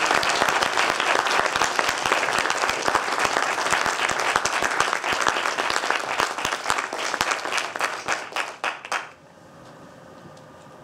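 Audience applauding: many hands clapping together, thinning out near the end and stopping about nine seconds in.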